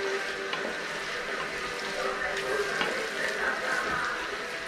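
Chopped vegetables sizzling in olive oil in a stainless steel pot as a spatula stirs them. The vegetables' water has cooked off, so they are now frying in the oil.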